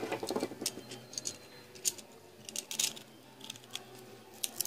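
Metal hand tools handled on a workbench: tongue-and-groove pliers picked up and worked around a bolt and nut, giving irregular light metallic clicks and clinks, with a brief scraping rustle at the start.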